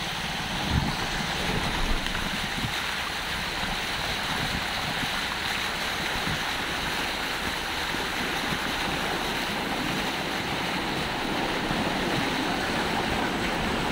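Steady rushing and sloshing of floodwater as a vehicle drives through a waterlogged street.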